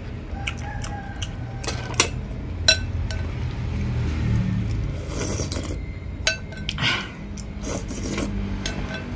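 A metal spoon clinks and scrapes against a glass bowl several times as stewed pork trotters and broth are scooped up and eaten, over a steady low rumble.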